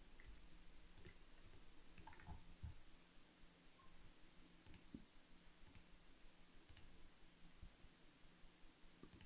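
Near silence with a few faint, scattered clicks of a computer mouse.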